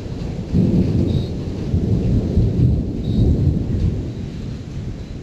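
Rolling thunder from a lightning storm, a deep continuous rumble that swells suddenly about half a second in and eases off over the last second or so.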